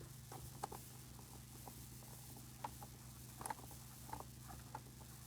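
Scattered light clicks and taps from hands working on car interior trim and fittings, over a steady low hum.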